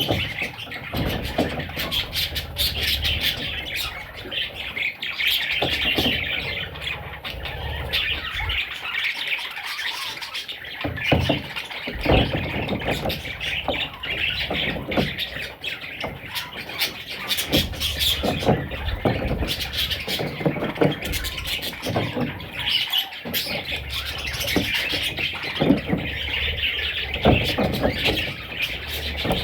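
Budgerigars chattering and chirping nonstop, with many short clicks and knocks mixed in.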